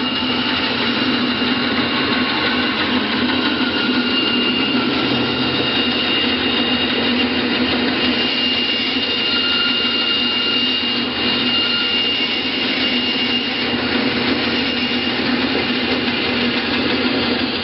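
Davis & Wells DB20-64 vertical wood band saw running freely, with a steady hum and a thin, high, constant whine over it.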